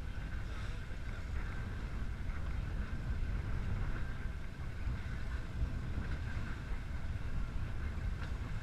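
Boat engine running with a steady low rumble and a faint steady whine above it.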